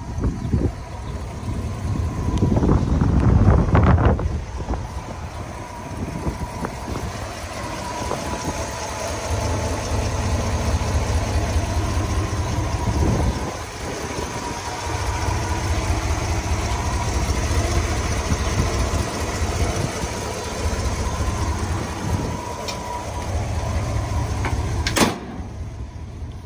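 1960 Ford F-600 truck engine idling steadily, revved up briefly about three seconds in. Near the end comes a single sharp bang, the hood slamming shut, after which the engine sounds muffled.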